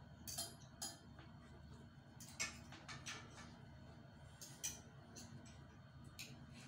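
Spoon and fork clinking and scraping on a ceramic plate as a piece of boiled lamb is cut apart: scattered light clicks, several in quick pairs.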